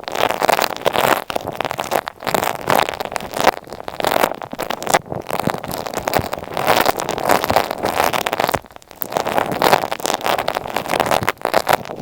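Scratchy, crackling rubbing right against an earphone microphone, made up of dense irregular clicks. It breaks off briefly just after two seconds and again near nine seconds.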